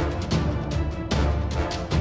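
Background music with a steady beat and strong bass.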